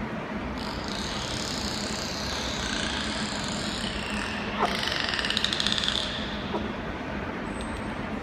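Bottlenose dolphins vocalizing in air through the blowhole. High whistles glide downward from about half a second in, and near the middle comes a louder, rapid buzzing pulse call lasting about a second and a half.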